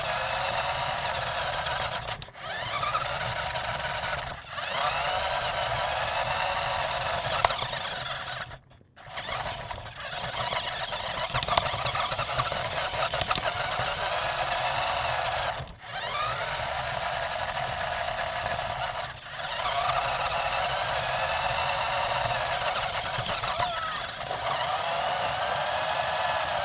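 Electric motor and gearbox of a small radio-controlled toy truck whining as it drives. The whine cuts out briefly about six times and rises in pitch again each time the truck pulls away.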